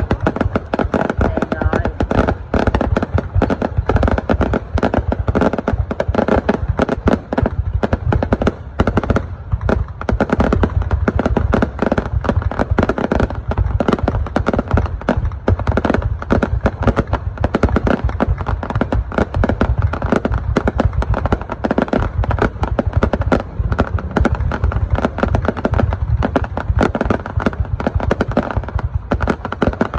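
Fireworks going off in a dense, continuous barrage of rapid bangs and crackles, many per second without a pause.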